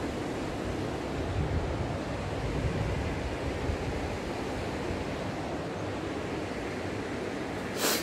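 Steady rush of a waterfall, with low, uneven wind buffeting on the microphone. A short, sharp noise comes near the end.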